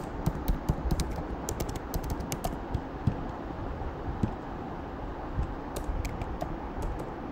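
Typing on a computer keyboard: quick, irregular key clicks in runs, thinning out in the middle before picking up again.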